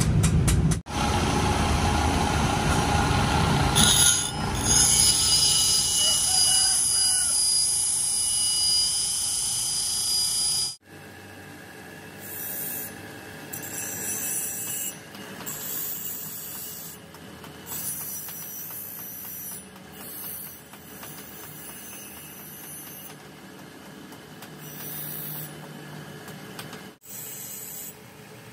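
Metalworking on a rusty steel bearing: a loud, steady power-tool grinding for about ten seconds, then, after an abrupt cut, quieter intermittent scraping and rubbing.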